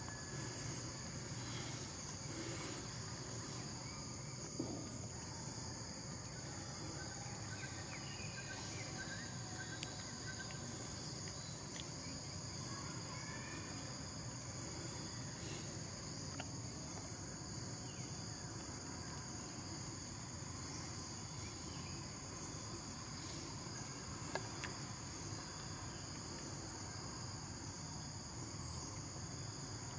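Steady insect chorus in the forest, a constant high buzz, with faint short high chirps repeating through it and a couple of soft clicks.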